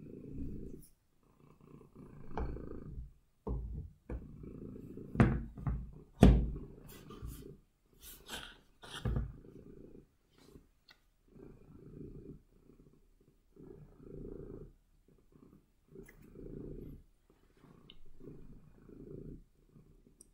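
Domestic cat purring close to the microphone, a low rumble that swells and fades about once a second with each breath. A few sharp knocks between about five and nine seconds in are louder than the purr.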